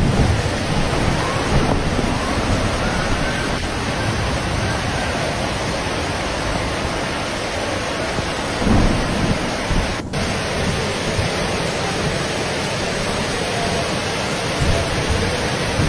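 Steady rain with rolling thunder, a low rumble swelling near the start and again about nine seconds in.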